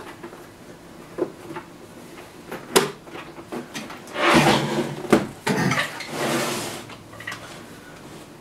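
Clicks, knocks and scraping from a plastic portable TV set being handled as its batteries are fitted and its controls worked: sharp clicks about one and three seconds in, then longer rubbing and scraping in the middle.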